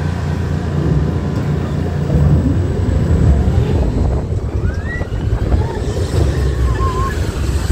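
Test Track ride vehicle moving along its track: a loud, steady low rumble.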